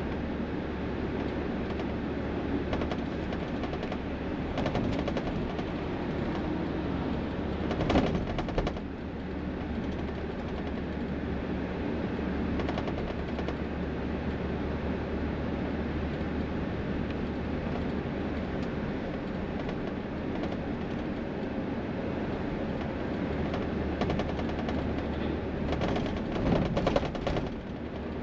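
Highway traffic passing a roadside spot: a steady rush of vehicle noise, with short rapid rattles about eight seconds in, the loudest moment, and again near the end.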